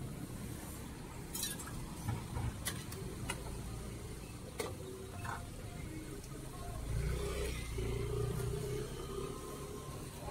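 Scattered clinks and knocks of metal ladles and spoons against bowls and pots as sauces are dished into bowls at a noodle stall. A low rumble sits underneath and swells for a couple of seconds past the middle.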